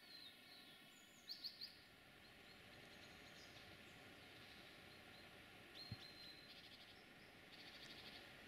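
Faint bird chirps and short trills over a quiet outdoor background hiss: a quick run of three chirps just over a second in, a held whistle and trill about six seconds in, and another trill near the end. A single soft knock comes about six seconds in.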